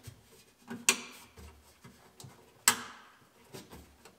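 Two sharp clicks about two seconds apart, with fainter handling knocks between them: wiring-harness plugs being pushed into a car radio amplifier.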